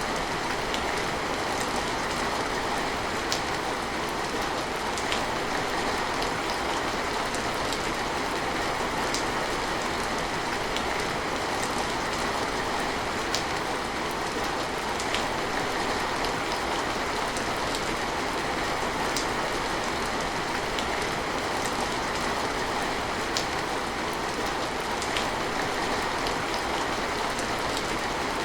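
Steady, even rain falling, with single drops ticking sharply every second or two.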